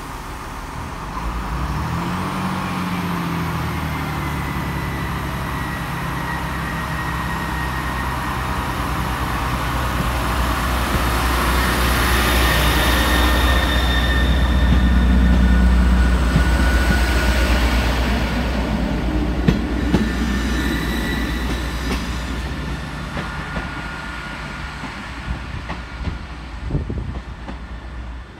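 A Class 158 diesel multiple unit pulling away from the platform and accelerating past: its underfloor diesel engines rev up with a climbing pitch and a high whine, the deep rumble growing loudest about halfway as the unit passes and then fading. Sharp wheel clacks over rail joints come around two-thirds of the way in.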